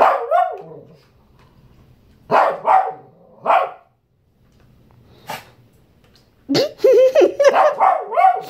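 Shih tzu barking up at a person to demand food: a bark at the start, three quick barks a couple of seconds in, then a rapid run of yappy barks with wavering pitch through the last two seconds.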